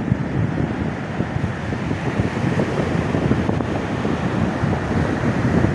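Wind buffeting the microphone over the steady wash of ocean surf on the beach.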